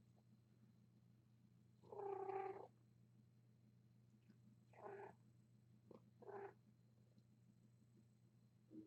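Domestic cat mewing three times: a longer mew about two seconds in, then two shorter ones around five and six seconds in, over a faint steady hum.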